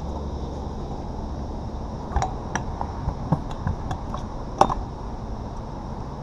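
Kick scooter clattering on asphalt during flat-ground tricks: a run of sharp clicks and knocks, the loudest about four and a half seconds in, over a steady low background rumble.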